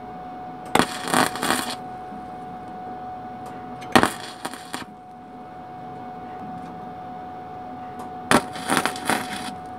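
Wire-feed welder tack-welding a steel exhaust header tube: three short bursts of arc crackle, each under a second, about a second in, about four seconds in and near the end, over a faint steady hum.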